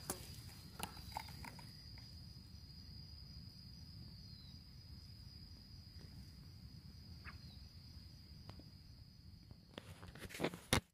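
Faint, steady, high-pitched insect trill that holds one pitch throughout, over a low rumble, with scattered clicks and a louder burst of rustling and knocks near the end.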